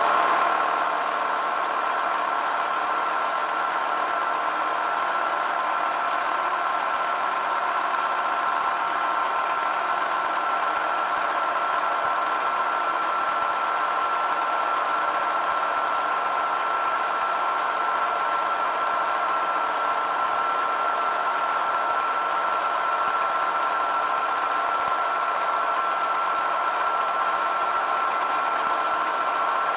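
Milling machine running, a small end mill taking a light facing cut off the side of a cast eccentric held in a vise. It is a steady whine with one high tone in it.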